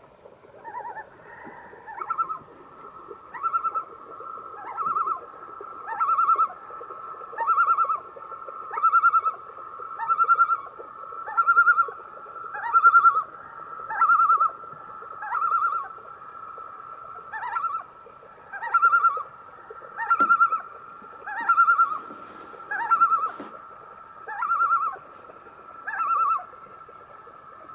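Common loon calling: a long run of loud, wavering phrases repeated at an even pace, about one every second and a half, each opening with a quick upward sweep.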